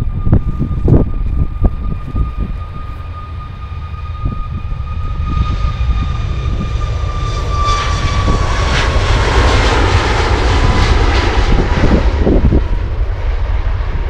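Jet airliner on the runway: a steady engine whine that dips slightly in pitch about eight seconds in as a roar swells, loudest around ten to twelve seconds. Strong wind buffets the microphone in low gusty rumbles, heaviest near the start.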